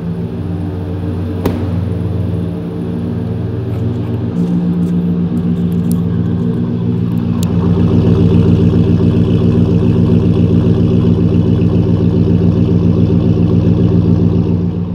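2011 Ford F-150 Raptor's 6.2-litre V8 idling steadily through its Roush aftermarket exhaust with dual tips. It grows louder over the first several seconds, then holds steady. A single sharp knock comes about a second and a half in.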